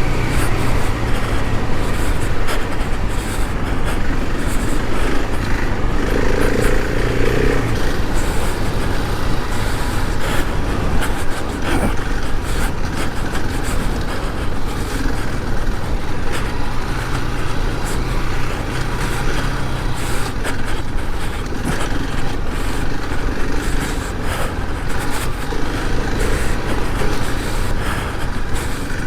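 Adventure motorcycle running steadily on a rough gravel and rock trail, with wind and tyre noise and frequent knocks and rattles from the ride.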